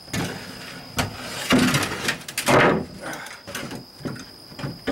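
Plywood deck panel scraping and knocking against the fiberglass boat hull as it is lowered and shifted into place, with a sharp knock about a second in and the loudest scraping in the middle. Crickets chirp steadily in the background.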